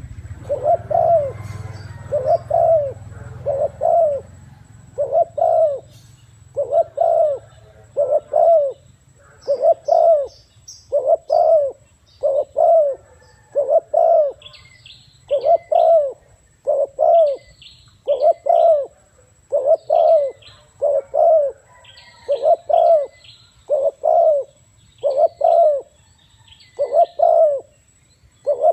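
Spotted dove cooing over and over, short low coos coming in pairs or small groups about every second and a half. From about nine seconds in, a small bird chirps faintly and high in the background.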